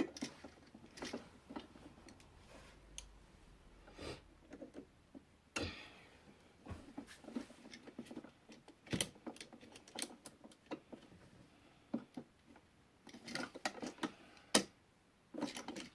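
Irregular small clicks and taps of a screwdriver tightening a wire under a receptacle's side terminal screw, with the receptacle being handled; a cluster of clicks near the end.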